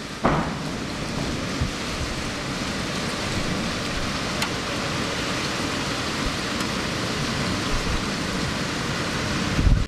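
Heavy thunderstorm rain pouring down in a steady hiss, starting suddenly just after the beginning, with a brief low rush near the end.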